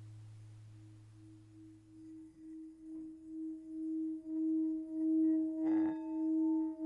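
A singing bowl ringing: one steady tone that pulses in volume and swells louder, with a higher overtone joining about three seconds in and a short strike near the end. A lower hum fades away in the first two seconds.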